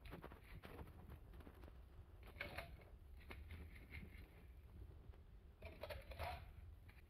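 Faint clatter of crushed ice being scooped into clear plastic cups, twice: about two and a half seconds in and again about six seconds in, with near silence between.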